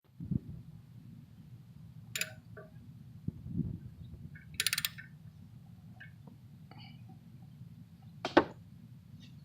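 Hand tools clicking and clinking on metal while a new oxygen sensor is fitted: a few separate sharp clicks, a quick run of clicks about halfway through, and the loudest click near the end, with a couple of dull thuds.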